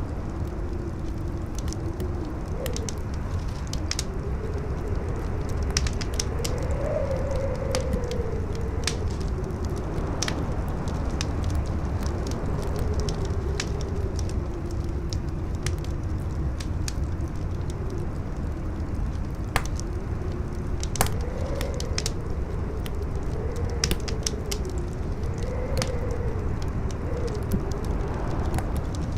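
Wood fire crackling with frequent sharp pops, over a steady low rumble of howling wind whose pitch rises and falls.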